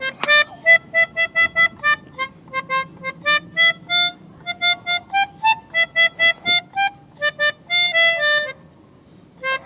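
Pianika (melodica) playing a quick tune of short, detached notes, about three to four a second, in the manner of a bus 'telolet' horn melody; the playing stops about a second before the end.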